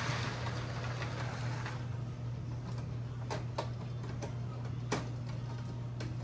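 Postwar 1958 Lionel O-gauge toy trains running on a three-rail layout: a steady low electric hum with scattered sharp clicks and rattles from the track.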